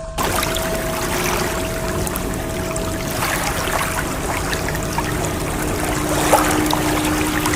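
Steady rushing, fizzing water that cuts in abruptly at the start, with a faint bell-like ringing tone held underneath that swells a little in the second half.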